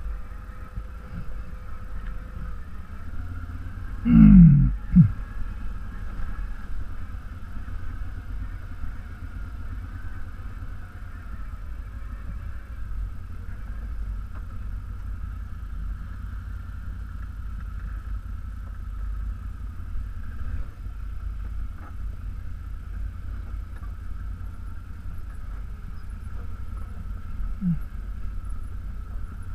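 ATV engine running at low speed down a rocky trail, a steady low rumble with a constant higher drone over it. Two short loud sounds falling in pitch about four seconds in, and a fainter one near the end.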